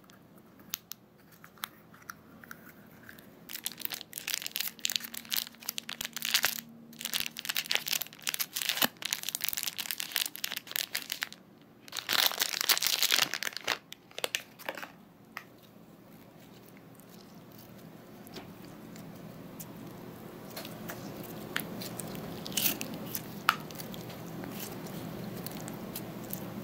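Thin clear plastic film crinkling and tearing as it is peeled off a lump of egg slime, loudest about halfway through. Then the slime is squeezed and kneaded between the fingers, a softer sticky squishing that slowly gets louder.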